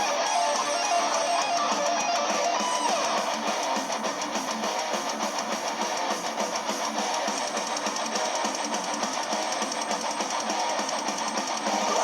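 Music playing steadily, with no pauses.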